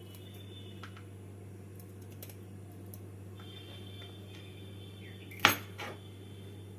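A knife clicking faintly and clinking on the board and dish while green beans are sliced lengthwise, with one sharp clack about five and a half seconds in and a smaller one just after. A steady low hum runs underneath.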